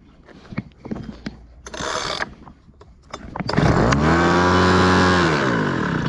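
Homelite HBL26B leaf blower's small two-stroke engine pulled over on its starter cord: it rises in pitch, runs steadily for about a second and a half, then winds down and stops. A short rasp comes about two seconds before it.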